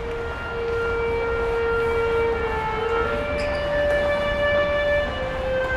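Metro train wheels squealing on the rails over a low rumble: long held shrill tones that step up in pitch about halfway through and drop back near the end.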